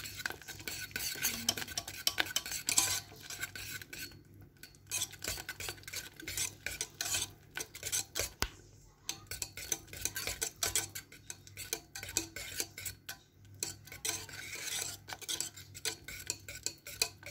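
A utensil stirring thick lemon curd in a metal saucepan, with many irregular clicks and scrapes against the pot as butter is worked into the cooked, thickened curd.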